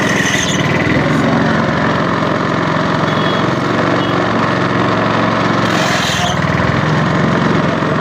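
Mercedes-Benz engine idling steadily with the electrical loads switched on, while the freshly repaired alternator charges at about 13.6 volts.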